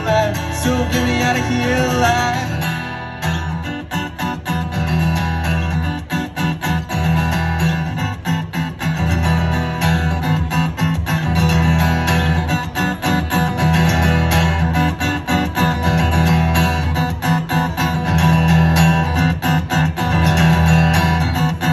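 Steel-string acoustic guitar strummed steadily in an instrumental break between verses. A male singing voice holds a line over it for the first couple of seconds, then the guitar carries on alone.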